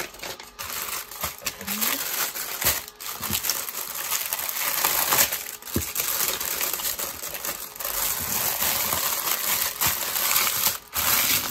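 Clear plastic bag crinkling and rustling without a break as it is handled: a paper inventory sheet is slid in beside small packets of diamond-painting drills, and the bag is folded and pressed flat.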